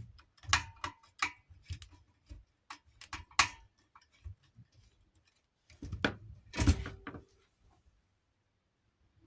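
Irregular clicks and knocks of ceiling fan parts and a screw being handled, with a louder clatter about six seconds in.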